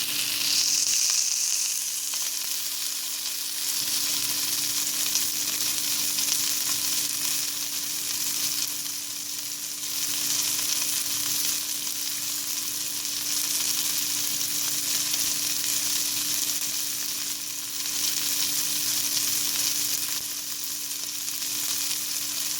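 Meat frying in hot oil and fat in a pan: a dense, steady crackling sizzle that swells and eases every few seconds.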